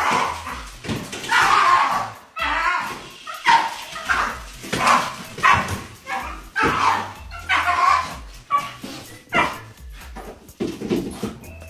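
A dog barking over and over, one or two barks a second.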